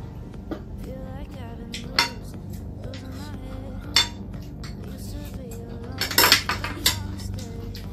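Metal spoons clinking and scraping against a plate of chatpat, with sharp clinks about two and four seconds in and a quick cluster of clinks near six seconds. Faint background music underneath.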